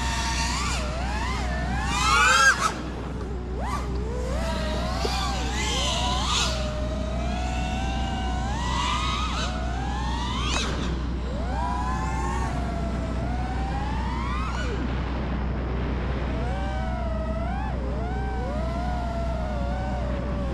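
Quadmula Siren F5 5-inch FPV freestyle quadcopter's motors and propellers whining, the pitch climbing and falling constantly with the throttle. About two seconds in, a hard throttle punch sends the whine sharply up to its loudest before it drops back.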